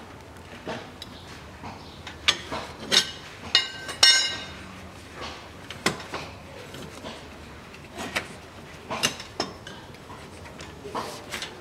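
Metal-on-metal clinks and knocks as a socket and the loosened 27 mm axle nut are worked off the front wheel hub of a CFMOTO CF500A ATV. About four seconds in there is one louder, ringing metal clank.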